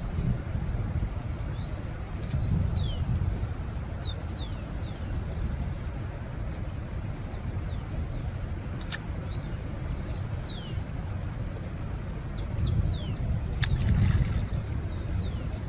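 Birds calling: many short whistled notes, each falling quickly in pitch, repeated throughout over a steady low rumble, with a couple of sharp clicks.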